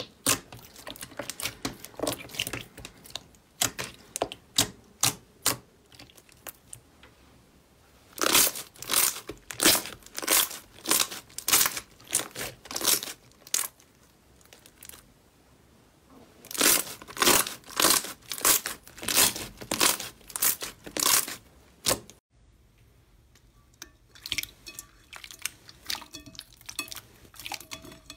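Slime being squeezed and pressed by hand, crackling and popping in rhythmic strokes about twice a second, then quieter, finer clicking near the end.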